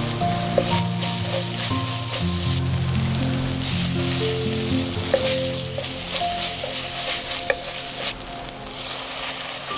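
Onion-tomato masala sizzling as it fries in oil in a metal pan, stirred with a wooden spatula.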